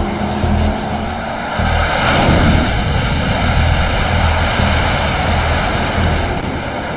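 Jet engine noise of a carrier aircraft at night, a loud steady rush over a low rumble that swells about two seconds in as the jet passes close.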